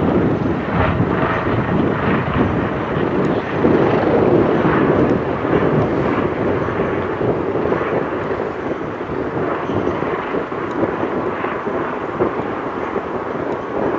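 Light helicopter passing overhead: a steady drone of rotor and turbine engine that eases slightly in the second half.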